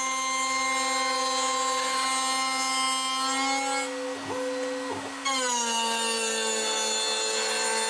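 Shapeoko 5 Pro CNC router spindle whining steadily as a surfacing bit cuts across a hardwood board, with a rasping cutting noise underneath. About three and a half seconds in the sound dips and roughens. About five seconds in it returns sharply, the whine a little lower in pitch and sagging under the load of a pass set significantly deeper than intended.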